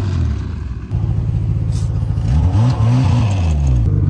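Snowmobile engine under load, revving up and down several times as the sled pushes through snow, with a brief dip in engine sound about a second in.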